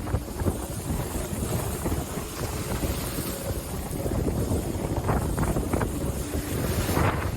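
Wind buffeting the microphone over the rush of water along the hull of an IMOCA 60 racing yacht under sail, with louder surges of water about five seconds in and near the end.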